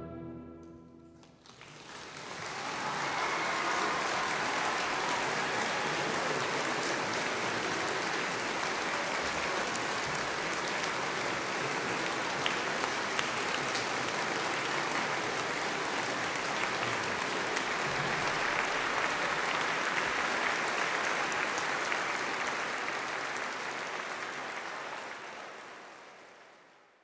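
Concert audience applauding after an orchestral piece. The last chord's reverberation dies away in the first second or so, then the clapping rises within about two seconds, holds steady, and fades out near the end.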